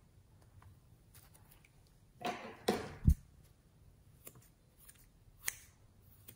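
Handling rustle ending in a sharp knock about three seconds in, then scissors snipping twice through soft clay.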